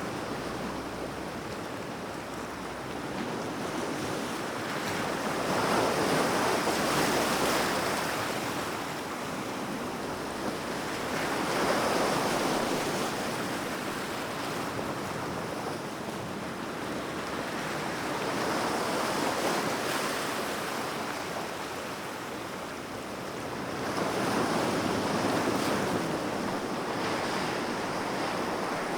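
Sea waves breaking and washing in, the surf swelling and ebbing about every six seconds, four surges in all.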